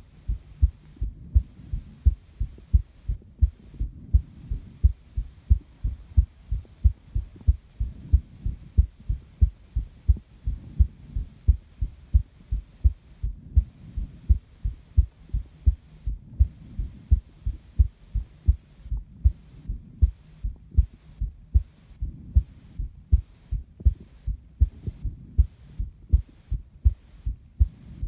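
A human heartbeat heard up close: a steady, even rhythm of low paired thumps, the lub-dub of the heart sounds.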